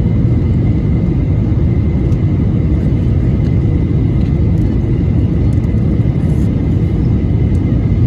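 Jet airliner cabin noise in flight: a steady low rumble of engines and rushing air, heard from inside the cabin by the window.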